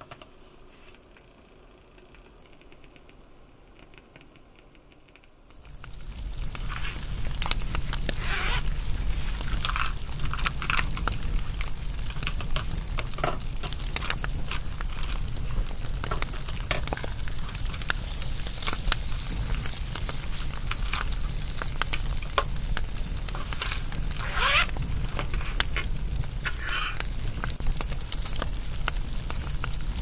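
Wood fire crackling: after a few seconds of faint ticks it comes in suddenly, about six seconds in, as a steady hiss with dense pops and crackles and a few longer hisses.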